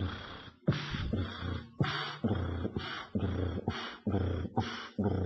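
Heart sounds of double mitral disease, combined mitral regurgitation and mitral stenosis, heard at the apex over the mitral area: a repeating cycle of sharp beats, about two a second, with a rumbling murmur between them.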